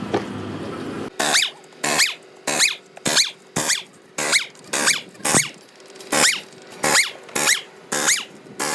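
Short scraping strokes, each with a squeal, repeated about thirteen times at a little under two a second, starting about a second in: a hand tool worked back and forth on a part.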